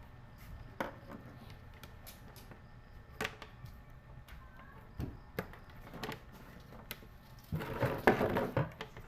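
Scattered sharp clicks and knocks from handling small hard objects on a work surface, then a louder burst of rattling and clattering near the end.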